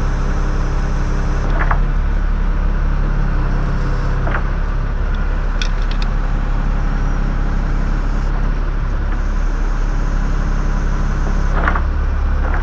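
Bucket truck's engine running steadily, with a few light knocks and clicks over it.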